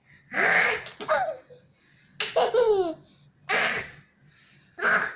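A young child imitating snoring: a series of four or five short, breathy snore sounds about a second apart, mixed with laughter.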